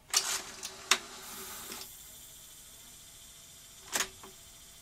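Mechanical piano-key transport buttons on a Skantic VCR-LP (Philips N1700 clone) video recorder clunking as they are pressed: two sharp clicks in the first second with a brief mechanical rustle, then a faint steady hiss, and a double click about four seconds in as another key goes down.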